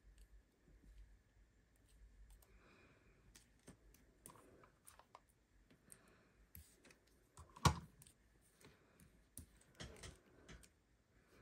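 Irregular light clicks and soft paper rustles from handling small cardstock pieces and running a tape runner over them, with one sharper tap about two-thirds of the way through.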